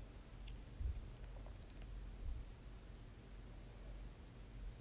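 Steady, unbroken high-pitched whine over a faint low hum, with a few faint clicks.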